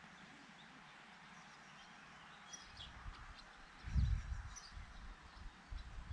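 Faint birds chirping over a steady outdoor hiss. From about halfway, irregular low thumps and rumbles set in, loudest about four seconds in.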